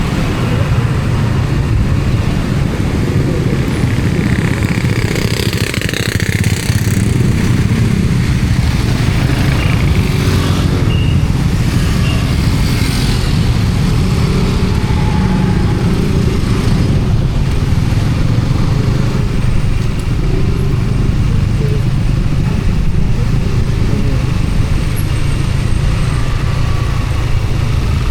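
Steady low rumble of a road vehicle on the move, with the hiss of other traffic swelling and fading a couple of times.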